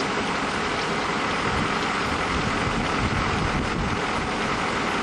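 Steady rushing noise of wind buffeting the microphone, with a fluttering low rumble.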